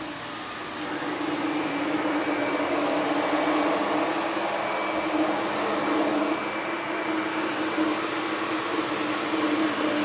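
SEBO Dart commercial upright vacuum cleaner running, its motor and powerhead brush roll working over low-pile carpet. It makes a steady hum with a high whine over a rushing hiss, getting louder about a second in as it is pushed along.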